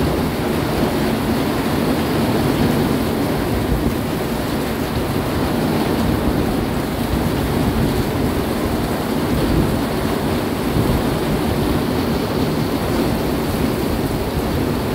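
Heavy rain pouring down steadily in a thunderstorm, with strong wind gusting through it.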